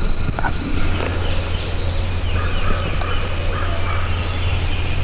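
A wild turkey gobbler gobbling, about two rapid rattling gobbles in the middle. A high steady whine stops about a second in.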